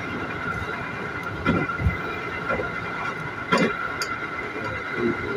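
Electric commuter train running, heard from inside the carriage: a steady rumble under a high, even whine. A few knocks and rattles come from the running gear, the sharpest about three and a half seconds in.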